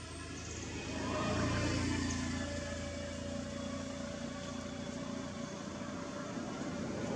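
A motor vehicle's engine running, growing louder about a second in and then holding steady.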